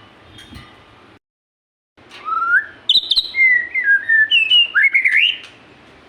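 A murai songbird singing a loud burst of varied whistled phrases, notes sliding up and down, about two seconds in and lasting around three and a half seconds.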